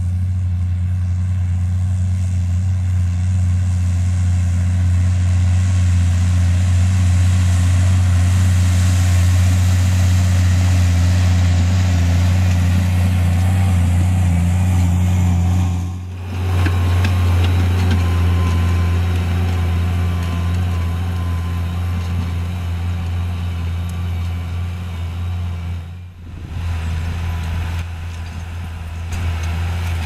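New Holland tractor's diesel engine running steadily under load while pulling a disc harrow through the field, a constant low hum. The sound breaks off briefly twice, about 16 s and 26 s in.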